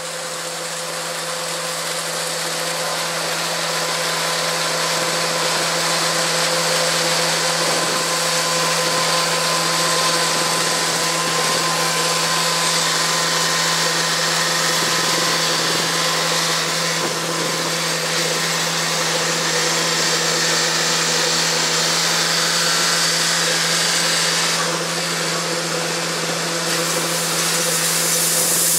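Heavy farm machinery running steadily at constant speed: a continuous hum with a steady whine over a rushing hiss, building in level over the first few seconds.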